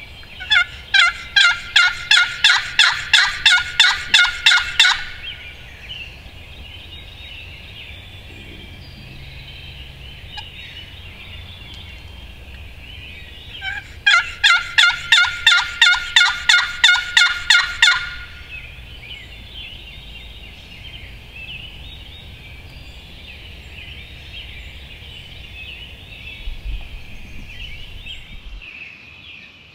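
A wild turkey calling loudly close by: two long runs of evenly spaced, rasping notes, about three a second and a dozen or more notes each, the second run coming some nine seconds after the first. A faint chorus of songbirds carries on behind.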